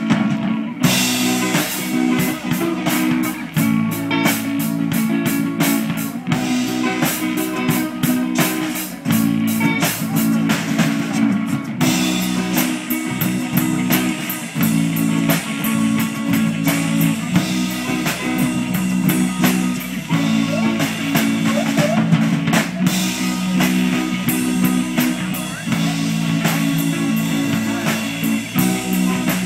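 Live band playing with electric guitar and drum kit, a steady beat throughout.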